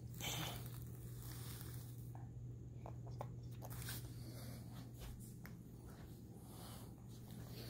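Baby sucking on a milk bottle: faint wet squishy suckling with small clicks, after a brief rustle as the bottle is handed over near the start. A steady low hum lies underneath.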